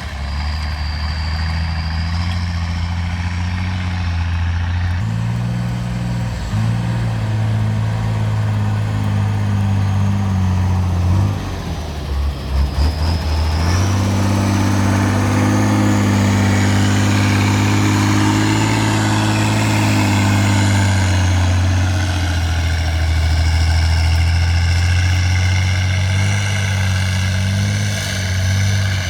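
Off-road trial truck's engine running under changing load, with a few uneven bursts about eleven seconds in, higher revs from about halfway through, and easing back in the last third.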